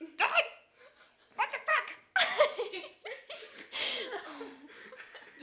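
Teenagers laughing and giggling in repeated short bursts.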